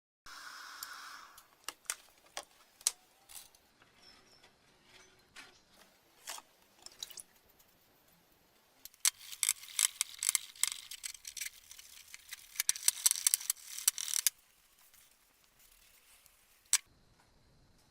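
Small metal parts being handled, with scattered clicks and clinks and a dense stretch of rapid clicking and scraping in the middle.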